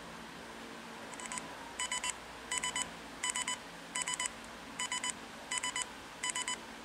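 Electronic beeping from a small device's speaker: quick double and triple pips repeating about every 0.7 s, starting about a second in, while a smartwatch searches for a phone to pair over Bluetooth.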